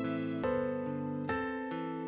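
Slow, sad background music on a keyboard, with a new note or chord about every half second.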